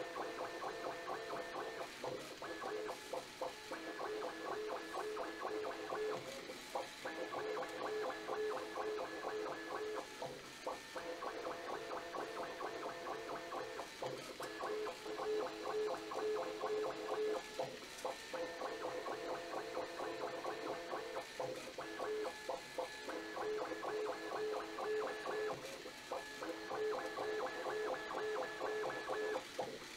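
Bambu Lab A1 3D printer running at sport speed, its stepper motors whining in several steady tones at once. The tones come in blocks that repeat every three to four seconds with short breaks as the print head sweeps back and forth.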